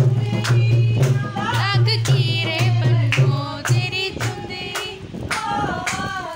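Background music: a song with a wavering singing voice over a steady percussion beat and a pulsing bass line.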